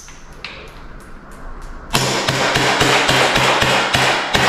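TAG TG92 CO2 blowback BB pistol, a Beretta 92/Taurus PT92 replica, first gives a few faint clicks, then from about two seconds in fires a fast run of sharp semi-automatic shots, about four a second. The CO2 charge is running down and the gun has chilled, so the shots are weak.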